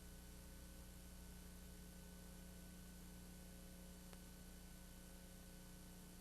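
Near silence: a steady electrical hum and hiss with no other sound.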